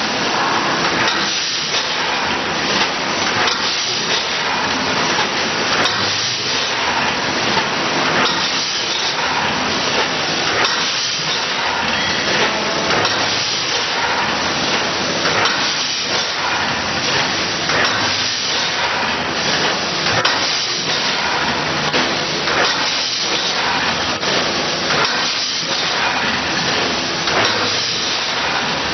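Vertical form-fill-seal packaging machine with a linear weigher running: a steady hiss with irregular knocks and clatter every second or two.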